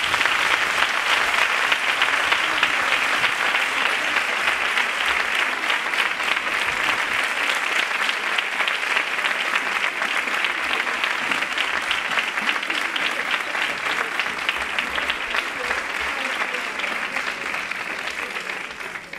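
An audience applauding steadily in a hall, fading out near the end.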